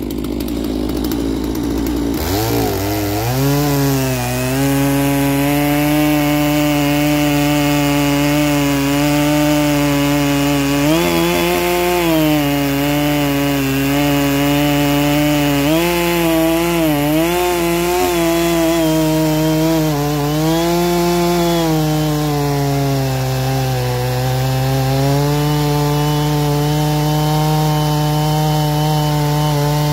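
Neotec NS892 two-stroke chainsaw, a Stihl MS660 clone on a 36-inch bar, running at full throttle while cutting through a large log. Its engine note dips briefly and recovers several times as the chain loads up in the cut.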